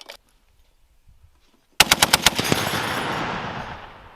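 M2 Browning .50 caliber heavy machine gun firing a short burst of about eight rounds in under a second, starting about two seconds in, with a long echo rolling away after it.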